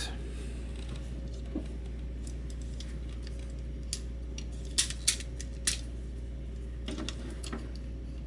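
Hard plastic clicks and taps from a Transformers Astrotrain action figure being handled, its joints and panels moved into place: scattered sharp clicks, the loudest bunched around the middle and a few more near the end, over a low steady hum.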